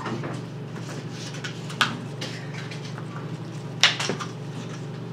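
A plastic stirring stick working slime in a small plastic bowl, with a few short sharp clicks and taps: one about two seconds in and two close together near four seconds. A steady low hum runs underneath.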